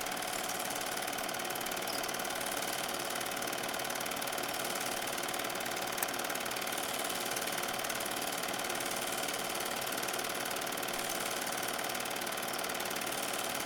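Bell & Howell 1820CZ Dual 8 film projector running: a steady motor hum with the fast, even clatter of its film-advance mechanism. One small click about six seconds in.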